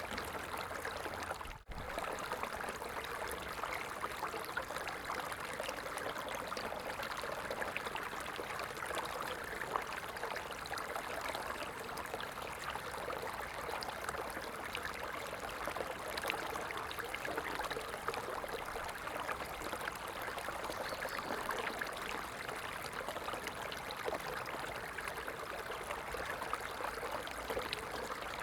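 Running water flowing steadily, like a small stream, with a fine splashing hiss. It cuts out for an instant about a second and a half in, then carries on unchanged.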